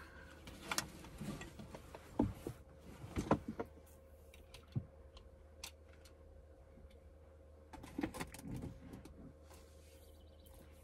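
Scattered light clicks and knocks, bunched in a few clusters, over a steady low hum.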